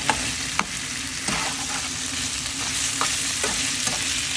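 Chicken breast, potato and carrot sizzling in a frying pan while a slotted metal spatula stirs them, with a few irregular scrapes and taps of the spatula against the pan.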